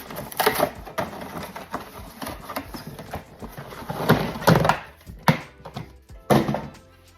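Irregular knocks and thunks of objects being handled and set down, over background music.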